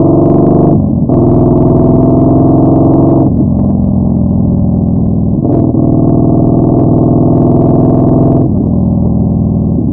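Yamaha Bolt 950's air-cooled V-twin through a Vance & Hines Twin Slash staggered exhaust, under way and accelerating: the engine note climbs, breaks briefly at gear changes about a second in and again around five and a half seconds, and eases to a lower, steadier note at about three seconds and again near the end.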